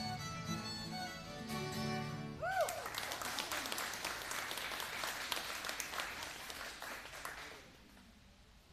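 Acoustic band with fiddle and acoustic guitars playing the last bars of a tune, which ends with a short rising-and-falling note about two and a half seconds in. An audience then applauds for about five seconds, the clapping dying away near the end.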